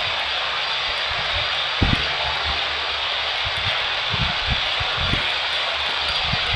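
Jet airliner engines running with a steady, even rushing noise that does not rise or fall, with some irregular low thumps underneath.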